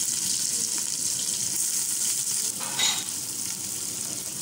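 Sliced onions sizzling as they go into hot oil in a large steel pot: a loud, steady hiss with a brief louder burst near the middle, easing slightly afterwards.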